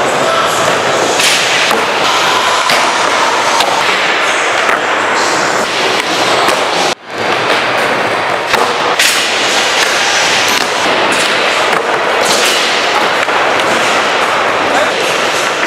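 Skateboard sounds on wooden ramps: wheels rolling and board knocks and landings, echoing, with a brief dropout about seven seconds in.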